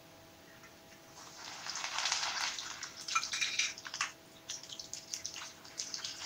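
Garlic dropped into hot oil with frying cumin seeds in a kadai: the oil starts sizzling about a second in and rises to a loud hiss, then settles into uneven crackling and spitting as it is stirred.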